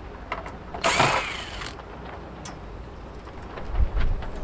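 Ryobi cordless driver spinning a small Phillips screw out of a circuit board in a steel switch chassis: one short whirring burst about a second in, with a few light clicks. A low rumble comes in near the end.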